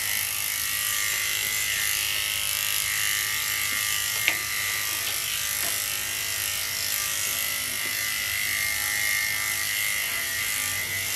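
Electric dog-grooming clippers running steadily as they are worked through a toy poodle puppy's coat, a continuous buzzing hum with a high whine; they cut off at the very end.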